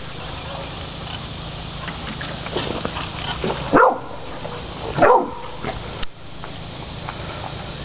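Catahoula cur dog barking as it bays hogs, two loud barks a little over a second apart past the middle, with a few fainter barks before them.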